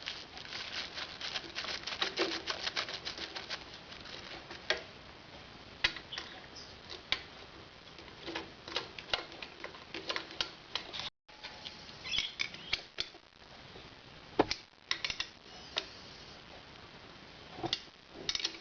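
Socket ratchet clicking in quick runs as the rocker box bolts are run down, with a few single metal knocks from the tools and bolts.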